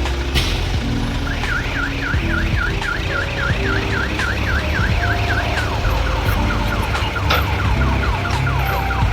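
A heavy vehicle's electronic warning alarm, of the reversing kind, sounding over a diesel engine running. It warbles up and down about four times a second, and from about six seconds in it changes to a quicker falling chirp.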